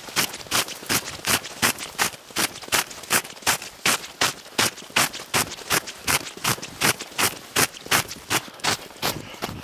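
Boots running on fresh snow, each step a short crunch, about three steps a second in a steady rhythm.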